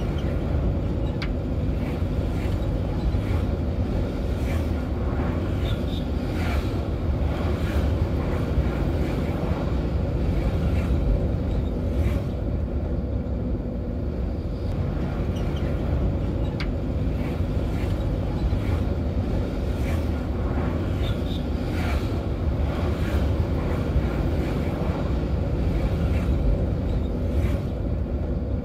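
Steady road-traffic rumble, with scattered brief higher-pitched sounds over it.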